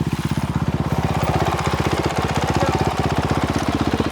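Motorcycle engine idling steadily with an even, rapid beat.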